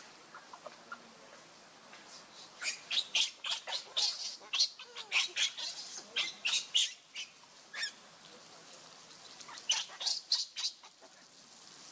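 Baby macaque screeching in rapid strings of short, high-pitched squeals, distress cries as an older monkey grabs and pulls at it. There is one long bout starting about two and a half seconds in and a shorter one near the end.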